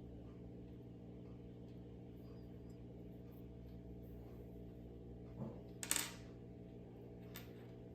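Faint steady low hum, with a few brief soft clicks and taps about five and a half to six seconds in and once more near the end.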